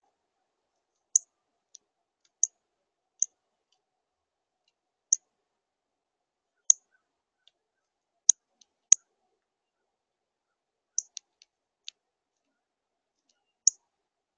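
Male northern cardinal at a seed feeder tray making short, sharp clicks: about a dozen at uneven spacing, some in quick pairs.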